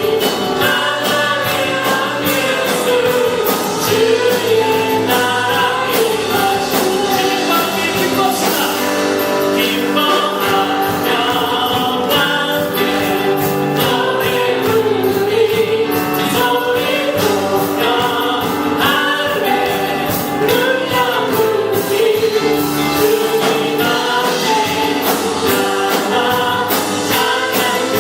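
Congregational worship song: voices singing together in unison over a band with a steady beat.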